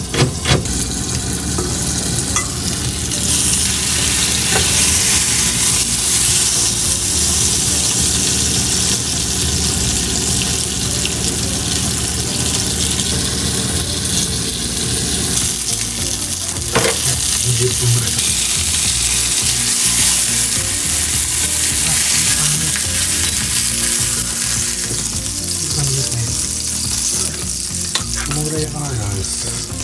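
Chicken thigh frying in olive oil in a covered frying pan, a steady sizzle, with a single clink about halfway through.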